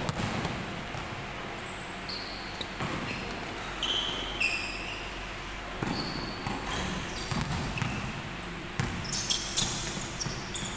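Basketball game sounds on an indoor hardwood court: a ball bouncing, with a run of dribbles near the end, and a few short, high sneaker squeaks on the floor, echoing in the hall.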